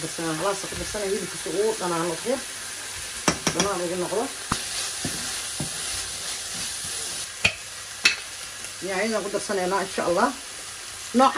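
Minced beef frying and sizzling in a non-stick pan while being stirred with a wooden spoon, with a few sharp clicks of the spoon against the pan. A voice is heard at times, in the first couple of seconds and again near the end.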